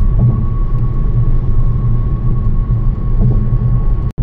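A car driving at highway speed, heard from inside the cabin: a steady low rumble of road and wind noise with a thin steady whistle above it. The sound drops out for an instant near the end.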